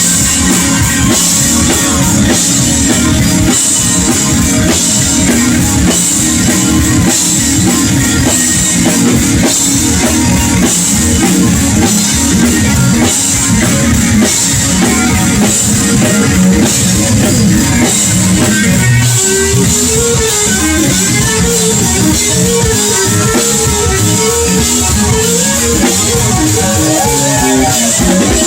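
Live blues-rock band: electric guitar over a full drum kit and bass. About two-thirds of the way in, a held guitar note wavers up and down in a wide, repeated bend.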